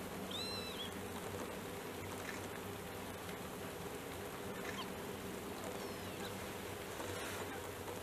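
Steady buzzing drone like flying insects, with one short arched bird call about half a second in and a few faint chirps later.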